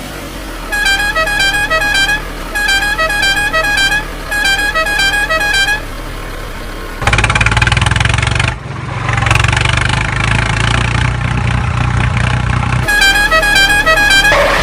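A musical vehicle horn plays a short tune of quick beeping notes over and over, then gives way to an engine's steady running rumble for several seconds. The horn tune comes back near the end.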